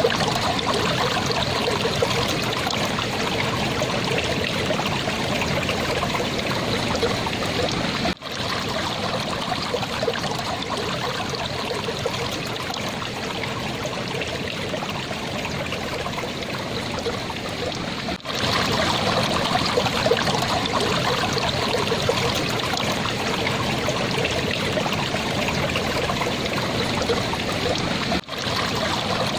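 Shallow stream of clear water flowing and trickling steadily. The sound breaks off for an instant three times, about every ten seconds.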